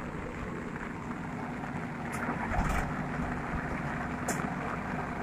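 Diesel engines of a tractor and a JCB backhoe loader running steadily, with a few sharp knocks and a heavier thump about halfway through.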